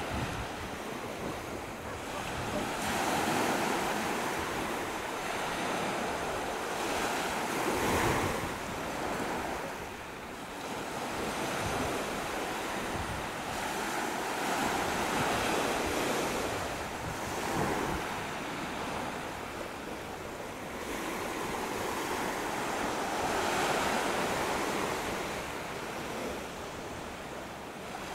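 Sea waves washing in and breaking, the surf noise swelling and ebbing every few seconds, with wind buffeting the microphone.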